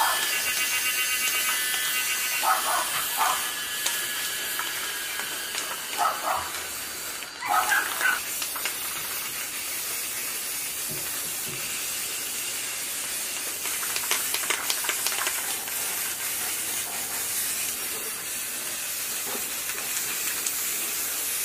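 Aerosol spray-paint cans spraying paint onto metal parts in a long, steady hiss. A few short, louder sounds break in during the first eight seconds.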